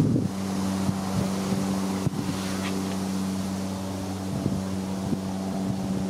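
A steady low mechanical hum, with wind buffeting the microphone and a couple of sharp knocks, one at the start and one about two seconds in.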